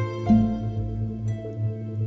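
Soft, calm instrumental music: held plucked notes over a low pulsing tone, with a new low note entering about a quarter of a second in.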